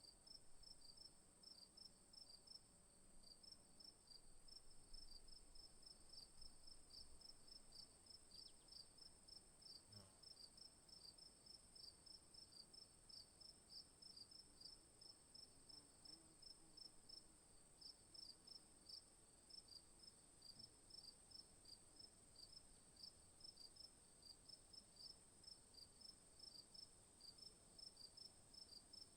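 Faint insect chorus: a steady high-pitched buzz with rapid, regular chirping, typical of crickets.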